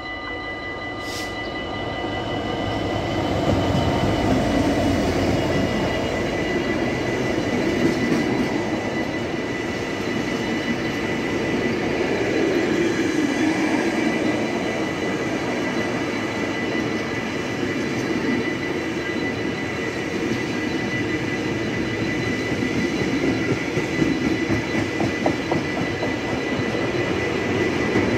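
An intermodal freight train hauled by an EMD JT42CWR Class 66 diesel locomotive passing close by, growing louder over the first few seconds; then a long string of container flat wagons rumbles and clatters along the rails. A steady high tone runs beneath it throughout.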